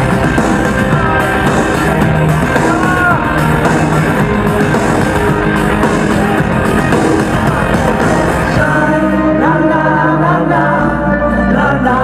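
Live rock band playing loud, with a female lead singer over drums, guitar and keyboards. About nine seconds in, the driving beat drops out and the band thins to held chords under the voice.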